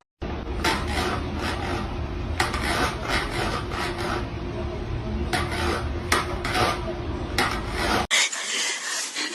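Rough rasping and scratching, with repeated sharp scrape strokes over a steady noise; it cuts off suddenly near the end.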